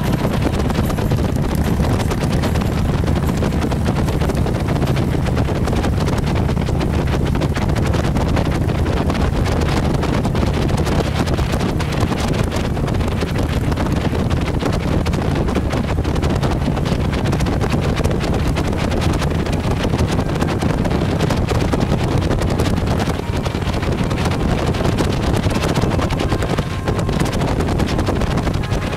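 Motorcycles at road speed: heavy wind noise on the microphone over the steady low drone of engines.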